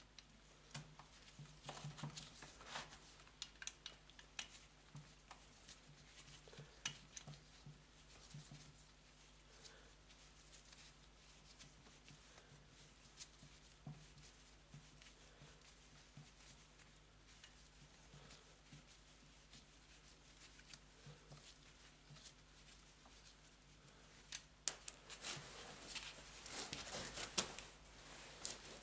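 Faint clicks, taps and scrapes of hands and small tools working loose the muffler of a Huter BS-45 chainsaw, with a busier run of louder metal clicks and rattles near the end.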